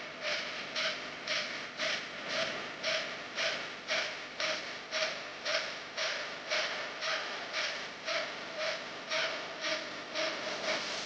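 Rhythmic rubbing or scraping strokes, evenly spaced at about two a second, each a short rasping hiss.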